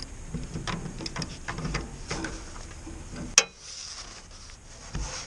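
Hand tools working a fuel-tank mounting nut loose: scattered light metal clicks and taps, with one sharper click about three and a half seconds in and a low thump near the end.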